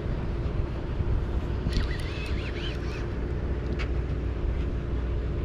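Sportfishing boat's engine running with a steady low drone and hum. A brief high, wavering sound comes about two seconds in.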